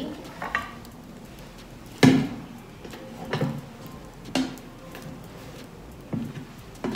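Clunks and knocks of a new kitchen trash bin's swing lid being fitted and handled: about half a dozen separate knocks, the sharpest about two seconds in.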